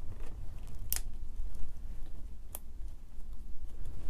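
Small screwdriver working the terminal screws of an electrical switch block to free its wire leads: low handling noise with two sharp clicks, one about a second in and another a second and a half later.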